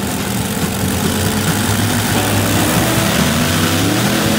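Modified pulling tractor's engines running loud and steady, rising in pitch over the last couple of seconds as they rev up at the start of a pull.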